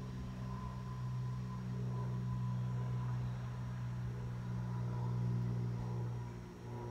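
A steady low machine hum, swelling a little toward the middle and easing off near the end.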